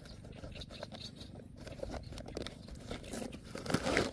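Plastic bag crinkling as it is handled, loudest in a cluster near the end, over light rustling and scraping.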